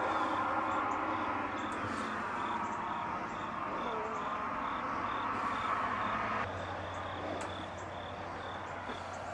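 A cricket chirping in a steady, even rhythm of short high pulses, a few a second, over a constant outdoor background hiss. About two-thirds of the way through, the background changes abruptly and a low steady hum comes in.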